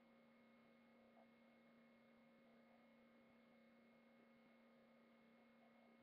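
Near silence: only a faint steady electronic hum from the recording chain.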